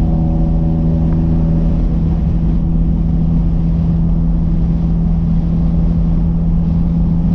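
Nissan Hardbody pickup truck cruising at a steady speed, heard from inside the cab: a steady engine hum over low tyre and road rumble.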